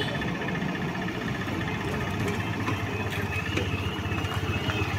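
Diesel engines of a DEMU (diesel-electric multiple unit) trainset running steadily, a low even rumble.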